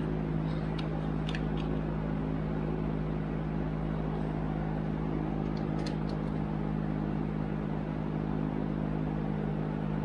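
A steady low mechanical hum, with a few light clicks of a screwdriver on the mower's throttle linkage, mostly in the first two seconds and again about six seconds in.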